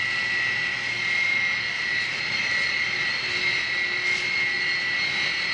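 Boeing 727's Pratt & Whitney JT8D jet engines running at taxi power: a steady high-pitched whine over a rushing hiss.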